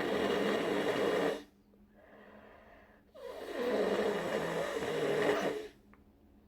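A person with a congested head cold blowing their nose hard into a tissue, twice: one blow ending about a second and a half in, then a longer blow of about two and a half seconds.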